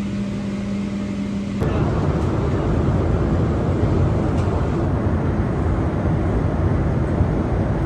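Steady vehicle noise: a low hum for the first second and a half, then a louder, rougher noise.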